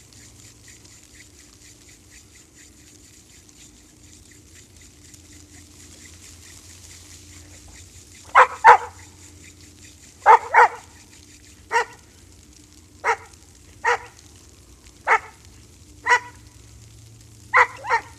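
A dog barking about a dozen times, starting about eight seconds in. The short barks come singly or in quick pairs, roughly a second or so apart.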